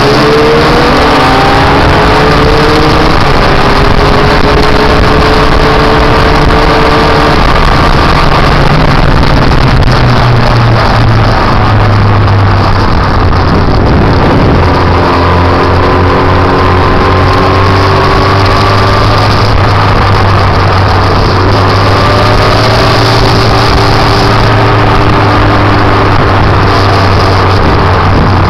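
Motorcycle engine running at road speed, heard from on the bike over a steady rush of noise. It climbs in pitch as the bike accelerates at the start, holds steady, drops back near the middle, then settles into a steady run again.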